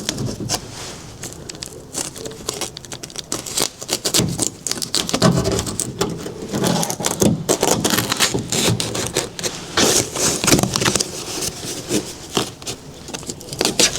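Sharp knife cutting through the plastic membrane behind a van's cab door panel, the sheet crackling and scraping in an irregular run of small clicks.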